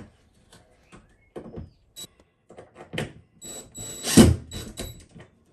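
Cordless driver whirring in several short trigger bursts as it drives a fixing into the edge of a PVC ceiling cladding panel, loudest a little past the middle, among scattered knocks and taps from handling the panel.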